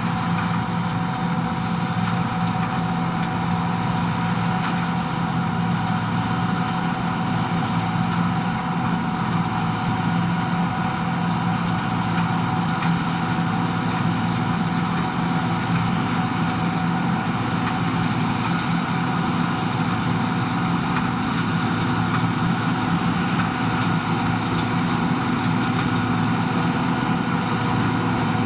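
John Deere 2258 combine harvester running steadily at work, its engine and threshing machinery giving an even hum with several held tones.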